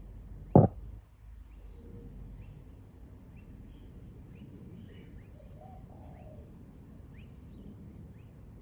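A single sharp knock about half a second in, then small birds chirping outside: short high chirps, about one a second, over a low steady background hum.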